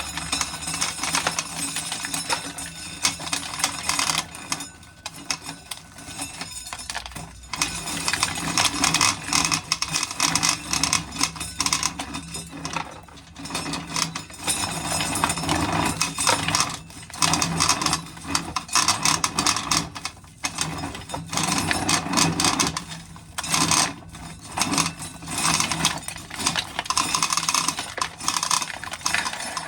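Dry ears of corn being shelled, the loose kernels clattering and rattling down into a pail in runs of busy rattling, broken by short pauses every few seconds.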